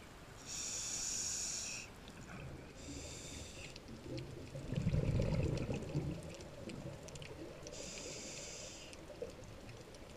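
Scuba regulator breathing heard underwater: three hissing inhalations through the demand valve, with a low rumble of exhaled bubbles about five seconds in.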